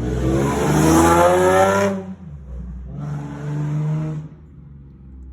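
Nissan Z sports car accelerating past, engine revs rising for about two seconds, then a brief drop and a second, shorter pull.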